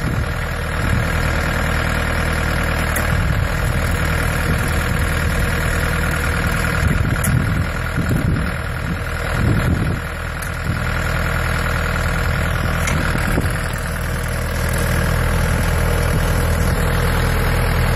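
Tractor engine running steadily, powering the hydraulic drive of a Blueline vineyard sucker remover with rubber flail rotors.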